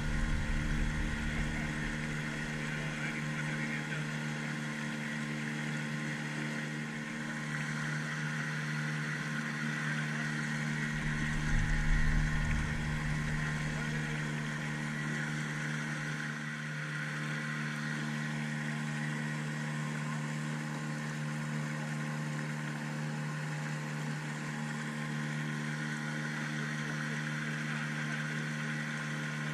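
Small motorboat's outboard engine running at a steady cruising speed, a constant drone heard from the kayak it is towing. Low rumbling gusts come near the start and again about twelve seconds in, the loudest moment.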